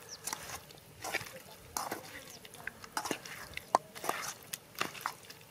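Raw chicken pieces being mixed by hand in a metal pan with a wet spice marinade: irregular wet squelches and small clicks as the pieces slap together and against the pan.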